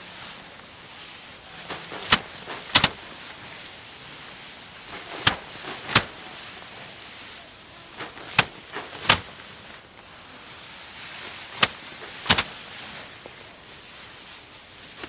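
Rice sheaves being slammed down to thresh the grain loose by hand. Sharp whacks come in pairs about two-thirds of a second apart, repeating roughly every three seconds.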